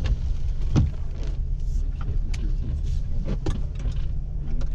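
Off-road Jeep's engine running steadily under load on a muddy trail, with several sharp knocks and clunks from the vehicle as it goes.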